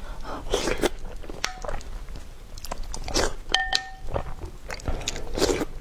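A person biting and chewing crunchy food close to the microphone: a string of irregular crunches and chews.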